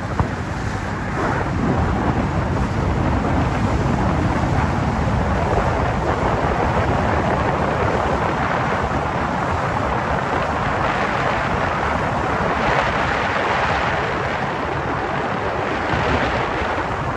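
Four outboard engines of a 48-foot Fountain Xpress powerboat running at high speed as it passes, a steady noise mixed with wind on the microphone.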